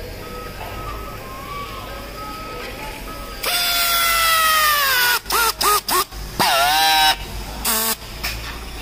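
Handheld pneumatic strapping tool tensioning and sealing plastic strap around a stack of bricks. About three and a half seconds in its air motor starts with a loud whine that falls in pitch as the strap tightens. Several short stuttering bursts follow, then a second burst of about a second with a wavering pitch, and a brief final burst.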